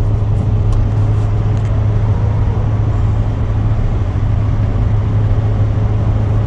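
Jaguar F-Type R's supercharged V8 pulling the car along at a steady, gentle cruise, a constant low drone with an even road-noise hiss over it and no revving.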